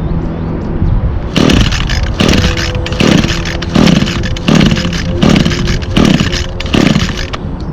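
Recoil starter on a 2019 Echo SRM225 string trimmer's 21.2cc two-stroke engine being pulled over and over, about eight quick pulls less than a second apart, without the engine catching. The primer bulb would not prime, so it is being cranked unprimed.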